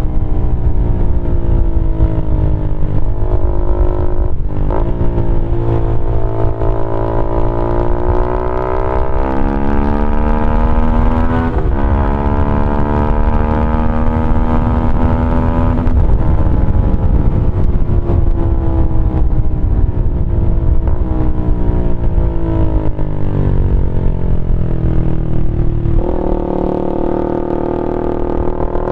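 Keeway RKF 125's single-cylinder four-stroke engine running loud through a GPR Deeptone exhaust with its dB killer removed, under way. Revs climb with brief breaks about four and twelve seconds in, fall steadily from the middle, and drop sharply near the end.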